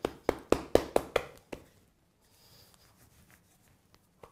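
A hand patting and slapping a ball of bread dough flat on a floured countertop: a quick run of about eight soft slaps, roughly five a second. The slaps stop about a second and a half in, leaving only faint handling sounds.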